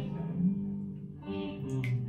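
Guitar playing a run of plucked notes, with a brief sharp click near the end.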